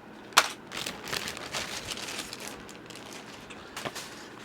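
Plastic packaging crinkling and rustling in irregular bursts as packaged USB cables are handled, with a sharp click about half a second in and a smaller one near the end.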